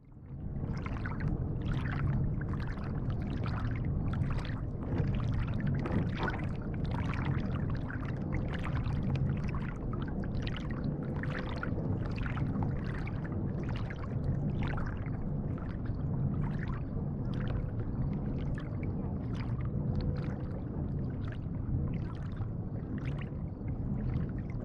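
Water lapping and splashing against the bow of a moving kayak, picked up just above the waterline: a steady low rumble with a quick, irregular run of small splashes, about one or two a second. The sound fades in at the very start.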